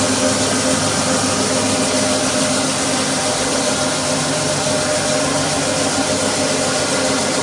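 Roll WOODY parquet sanding machine running steadily on maple parquet: an even electric-motor hum under a steady hiss of sanding and dust extraction.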